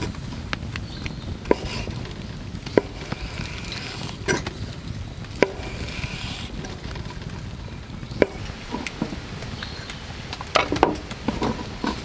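A knife slicing through chikuwa fish-cake tubes on a wooden cutting board: sharp knocks as the blade meets the board every second or two, several in quick succession near the end. A steady low rumble runs underneath.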